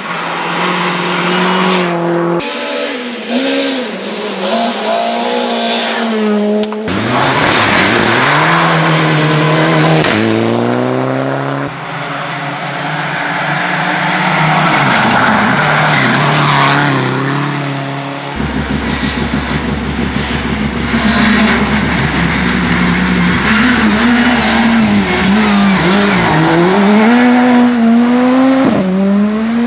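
Rally cars, one of them a Subaru Impreza, driving flat out through forest-stage bends one after another, engines revving hard with pitch rising and falling through gear changes. The sound changes abruptly several times as one car gives way to the next.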